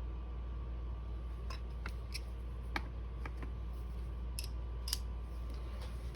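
Scattered small metallic clicks and taps of shotgun parts being handled during disassembly, two of them sharper, about three and five seconds in, over a steady low hum.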